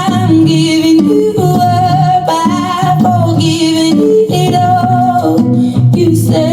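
A pop song playing: a singer holds long notes with vibrato over guitar and bass accompaniment.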